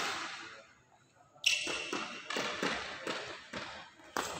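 Badminton rally: a string of sharp racket hits on a shuttlecock and players' footfalls on the court floor, echoing in a large hall, with a short lull about a second in.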